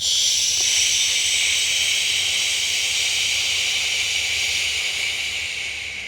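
A long, forceful exhale hissing out through the mouth: a steady hiss that starts suddenly and fades toward the end.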